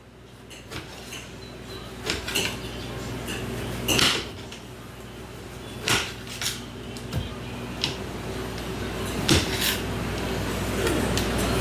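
Kitchen knife slicing an orange on a plastic cutting board: irregular taps and knocks as the blade strikes the board, about a dozen over the stretch.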